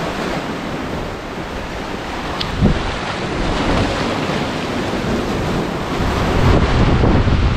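Sea waves surging and breaking on shoreline rocks, with wind buffeting the microphone. The surf grows louder about six seconds in, and there is a brief knock about two and a half seconds in.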